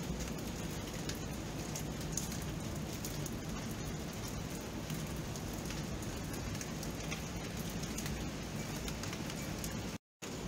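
Steady rain: an even hiss of falling rain, flecked with many small drop ticks. The sound cuts out completely for a split second near the end.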